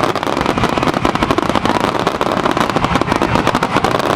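Fireworks finale: a dense, unbroken barrage of shell bursts and crackling, with many bangs a second.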